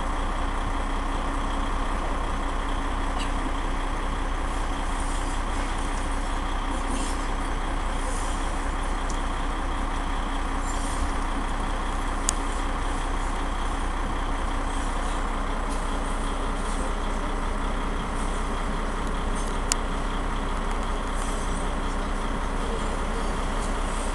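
Steady city street traffic noise, with two brief sharp clicks, one about halfway through and one later.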